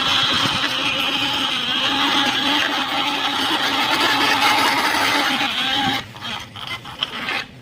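A small motor running steadily, which stops about six seconds in, followed by a few light clicks.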